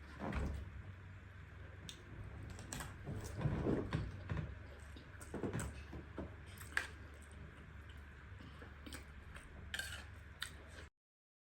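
Cutlery clinking and scraping against a plate, with eating and chewing sounds, in irregular clatters. The sound cuts off suddenly near the end.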